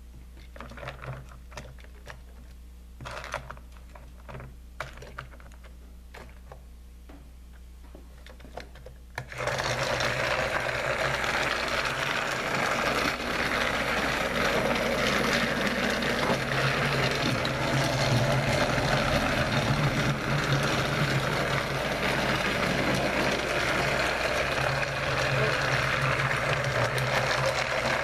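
Light plastic clicks and knocks as a Trackmaster Royal Spencer toy engine is handled on its track. About nine seconds in, its battery-powered motor and gears switch on and run with a steady whirring.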